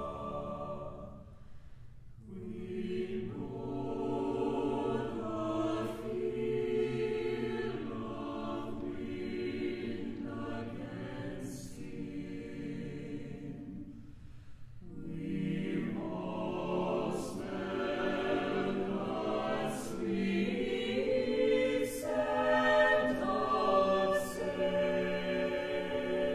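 Mixed SATB choir singing slow, sustained chords with organ, in long phrases with short breaks about two seconds in and about fourteen seconds in. The words include "We know the feel of wind against skin" and "We've all smelled the sweet scent of sage."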